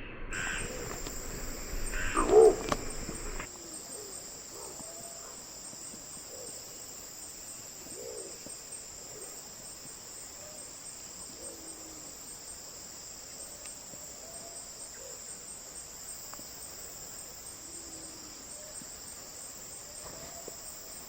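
Geelvink imperial pigeon giving deep, rough hooting calls: one loud call about two seconds in, then faint calls repeating every second or two. A steady high insect drone runs underneath.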